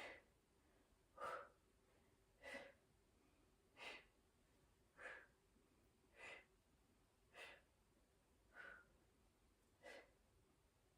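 A woman's faint, even breathing: nine short breaths about one every 1.2 seconds, the paced breathing of someone holding a side plank under effort.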